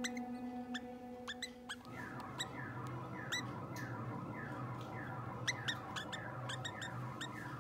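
Canaries cheeping: a constant run of short, rising squeaky calls, a few a second, over a steady low hum.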